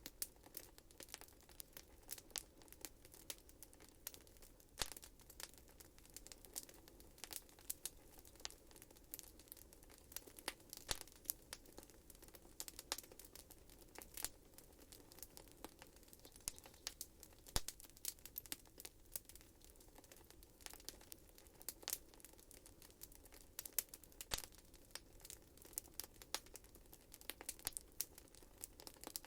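Wood fire crackling in a fireplace: irregular sharp pops and snaps, several a second, over a faint steady hiss of the burning.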